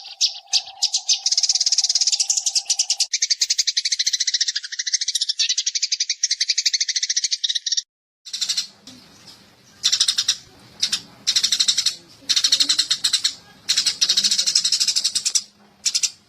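Eurasian tree sparrows chirping in a dense, rapid chatter. The calls cut out for a split second about eight seconds in and start again over a faint low hum; a steady lower tone runs under the first three seconds.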